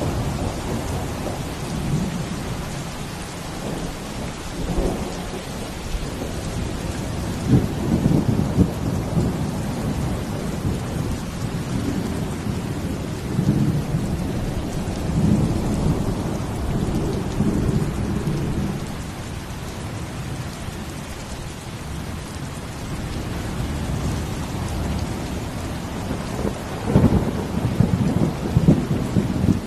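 Steady rain falling, with a low rumble that swells and fades several times; the strongest rumble comes near the end.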